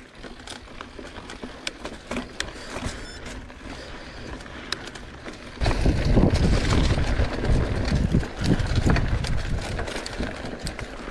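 Mountain bike riding noise: tyres rolling over a dirt trail, with small rattles and clicks from the bike and wind rumble on the microphone. About halfway through it suddenly gets much louder and rougher.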